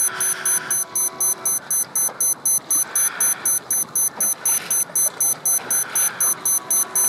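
Electronic beeper giving rapid, even, high-pitched beeps, about four a second.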